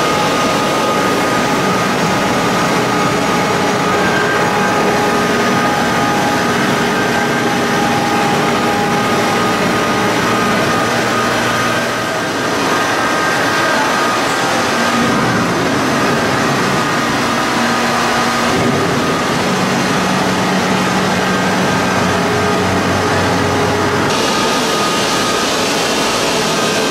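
Stone-cutting machinery running steadily: a loud, even mechanical noise with faint steady whines that shift in pitch a few times, with a brief dip about twelve seconds in.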